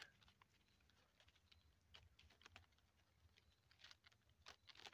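Near silence, with faint scattered light ticks and rustles.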